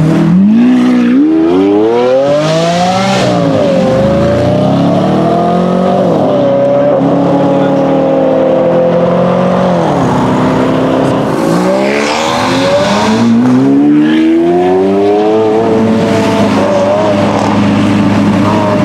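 Lamborghini Aventador V12 engines accelerating hard past. The engine pitch climbs, drops at gear changes and holds, then climbs again about eleven seconds in as another car pulls away.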